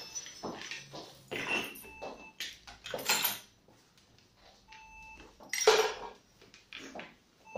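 Short electronic beeps, each a steady tone or a pair of tones, sounding three times, among the clatter of plastic toys being handled on a table. A louder sharp clatter comes about three quarters of the way in.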